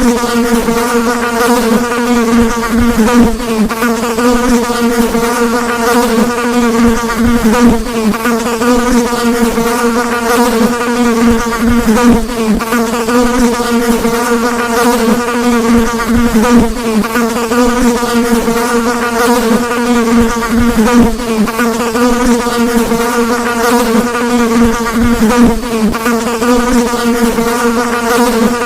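Housefly buzzing in flight, a continuous drone with a steady pitch that wavers slightly as it flies.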